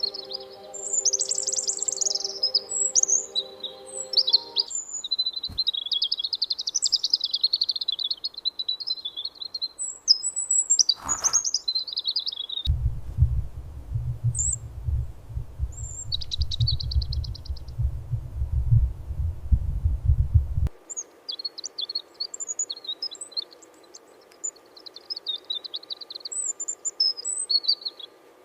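Small bird chirping in quick, high twitters and short calls, on and off. In the middle stretch a low rumble runs for about eight seconds, and a sharp click comes just before it.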